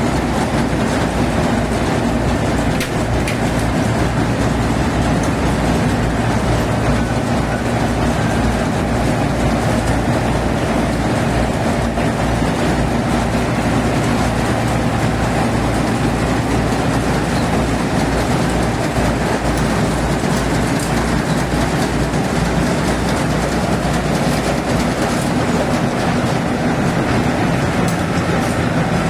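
Yanmar AW70V combine harvester running steadily under load, its engine rumbling with a fast low flutter beneath the continuous mechanical clatter of the harvesting machinery.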